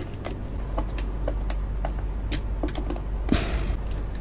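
Small irregular clicks and taps of a screwdriver and wire on a relay socket's screw terminal, with a short rustling scrape a little past three seconds in, over a low steady hum.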